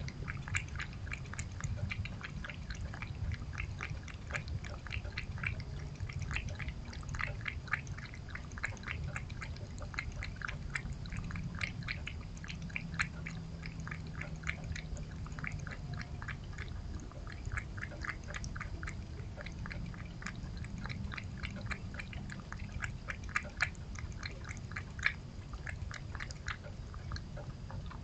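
A cat lapping chicken broth from a bowl: quick wet laps at about three or four a second, in runs with short pauses, over a low steady hum.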